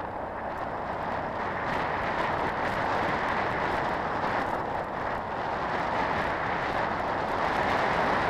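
Steady rush of wind and road noise from a big scooter riding along, growing slightly louder as it gathers speed.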